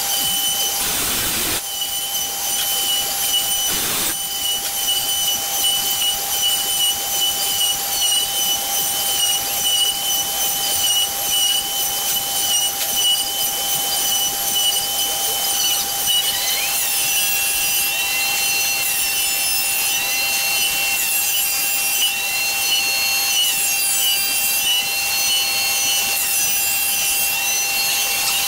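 CNC Shark router carving a wooden panel: the router spindle runs with a steady high whine as the bit cuts the wood. From about halfway through, short tones that rise and fall in pitch come in again and again as the carriage moves.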